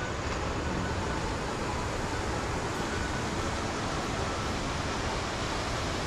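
Steady rushing of a distant waterfall, an even hiss with no break or change.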